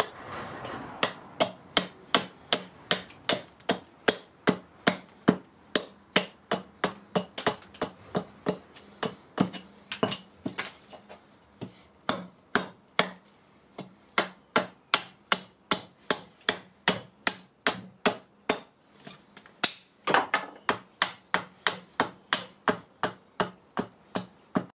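Small carving axe chopping down the handle of a wooden spoon blank stood upright on a chopping block: quick, regular strikes about three a second, with a brief pause a little before the middle.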